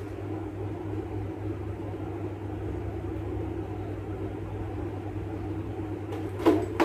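Steady low background hum, then two sharp clinks close together near the end as a small glass miniature liquor bottle is set down among other bottles on a wooden tray.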